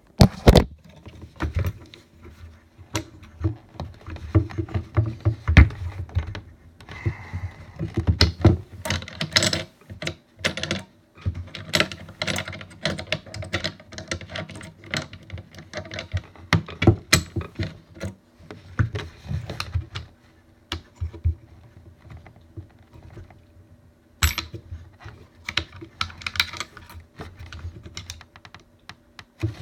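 Irregular small clicks, taps and knocks of metal rifle parts being handled and fitted together during reassembly of a Marlin 336 lever-action rifle.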